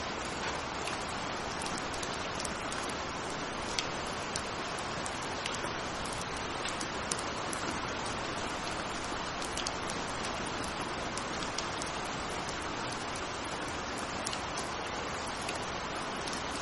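Steady rain falling: an even, unbroken hiss with scattered brief taps of single drops standing out.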